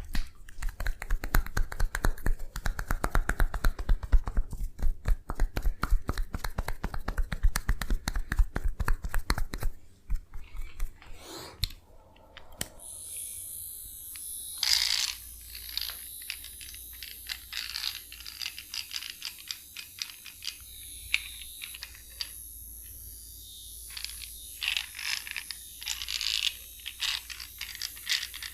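Massage sounds: fast, rhythmic tapping of hands on the body for about ten seconds. Then, over a steady hiss, quieter irregular scratchy rubbing and crackling.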